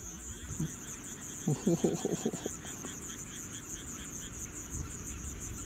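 Night field crickets chirping steadily in a fast, even pulse. About a second and a half in, a brief louder low sound lasts about a second.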